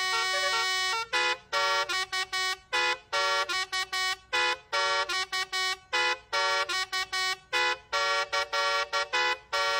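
Indonesian 'telolet' Basuri musical bus horn playing a tune. A held note for about a second gives way to a quick string of short, separate notes.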